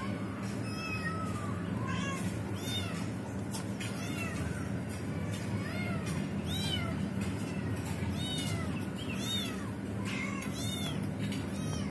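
Trapped kitten mewing over and over, short high-pitched calls about once a second.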